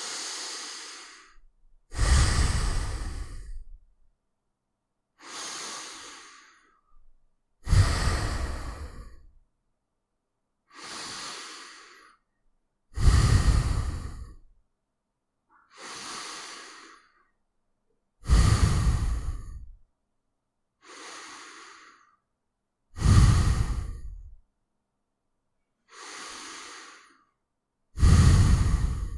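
A person breathing slowly in and out through the nose. Softer and louder breaths alternate, about one pair every five seconds, with a short silence between each breath.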